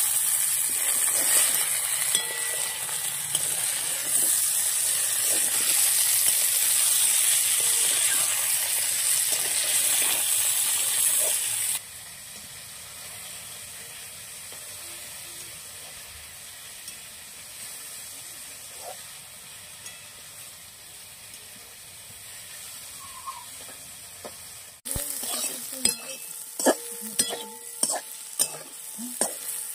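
Pointed gourd (parwal) slices sizzling as they fry in a metal kadai. The sizzle is loud at first, then drops suddenly about twelve seconds in to a quieter sizzle. Near the end a metal spatula stirs them, scraping and clinking against the pan several times a second.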